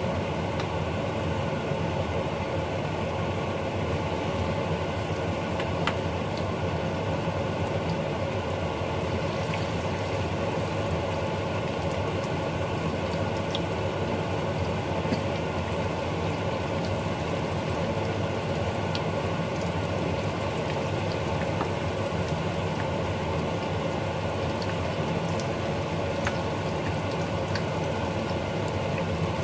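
Spoonfuls of chicken fritter batter frying in hot oil in a wok: a steady sizzle with small scattered crackles, over a steady hum.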